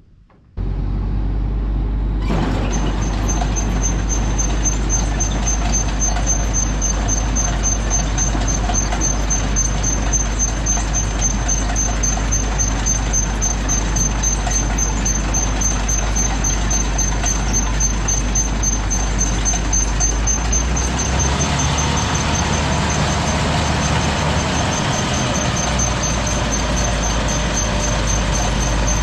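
Vehicle engine running steadily, with a constant low drone and a thin high whine; the low drone shifts in pitch about two-thirds of the way through.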